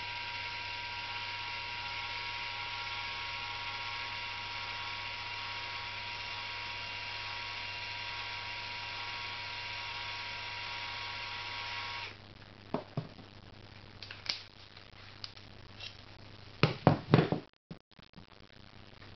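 Cordless drill running at a steady speed with an even whine, turning a wooden finial as it is brushed with lacquer; the motor cuts off abruptly about two-thirds of the way through. After it stops come a few scattered clicks and knocks, the loudest a quick cluster near the end, as the drill and brush are put down.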